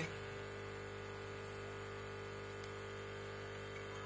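Steady electrical hum with a faint hiss, unchanging throughout; no distinct handling sounds stand out.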